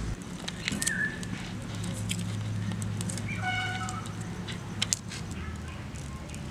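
Small dry clicks and crackles of garlic cloves being peeled by hand, with a short animal call about three and a half seconds in, over a low steady hum.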